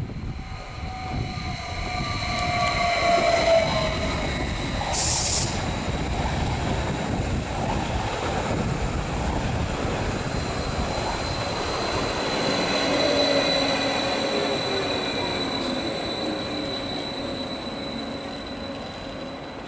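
TILO Stadler FLIRT electric multiple unit running in and slowing past the platform: rolling rumble with an electric motor whine that falls in pitch as it brakes, over a thin steady high squeal. A short high hiss sounds about five seconds in.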